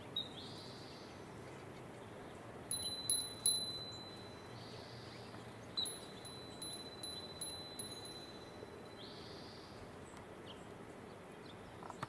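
High metallic chime, struck three times in quick succession about three seconds in and then about six more times from halfway through, each strike ringing on at one high pitch.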